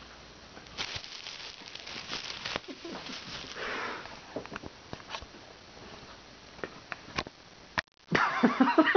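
Thin plastic shopping bag crinkling and rustling in spurts, with a few sharp crackles, as a cat shifts and pushes around inside it. Near the end, after a brief dropout, a louder voice starts.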